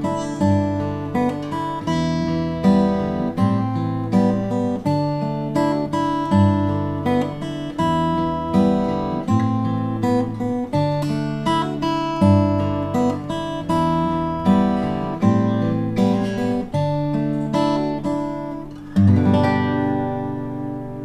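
Mentreel S20DC dreadnought acoustic guitar, with a solid spruce top and laminated mahogany back and sides, played fingerstyle: a picked melody over moving bass notes. Near the end a final chord is struck and rings out, fading away.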